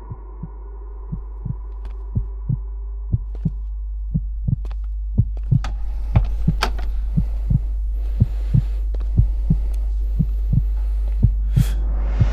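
Heartbeat sound effect on a film soundtrack: paired low thumps about once a second over a steady low drone, slowly growing louder. A short hiss comes near the end.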